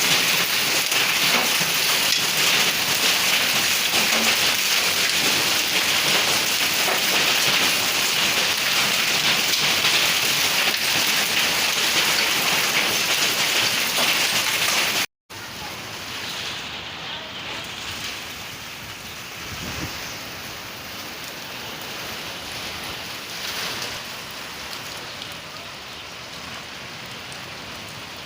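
Heavy rain and hail pelting down in a dense hiss. About halfway through it cuts out for a moment and comes back as quieter, steadier rainfall.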